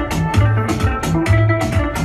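Electronic dance music in a tribal techno and guaracha mix, with a steady driving beat, metallic percussion hits and a repeating bass line.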